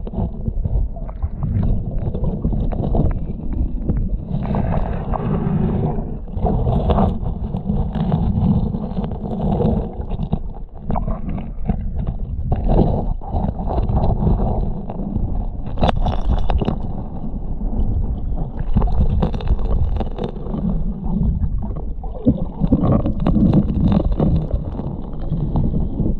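Creek water heard underwater as a steady muffled rumble, with scattered clicks, knocks and scrapes of gravel and stones as a gloved hand digs in the creek bed.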